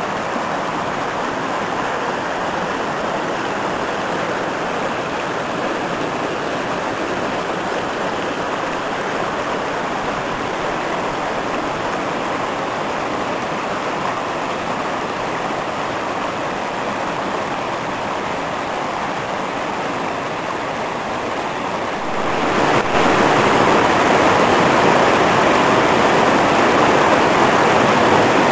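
A rocky creek rushing and splashing over stones in a steady roar of water, which grows louder about three quarters of the way through.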